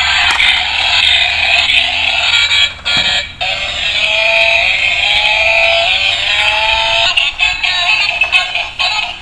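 Tinny electronic music from a toy race car's small speaker, with a gliding melody through the middle.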